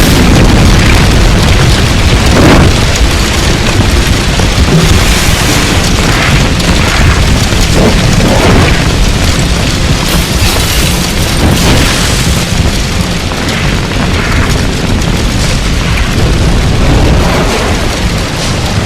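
A loud, continuous sound-design mix of deep rumbling booms and blasts, with a dense rumble underneath. It eases off slightly towards the end.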